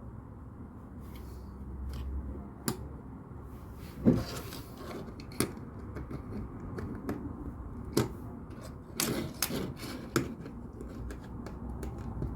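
LEGO plastic bricks being handled and pressed together: irregular sharp clicks and rattles, several louder snaps among them, over a steady low background rumble.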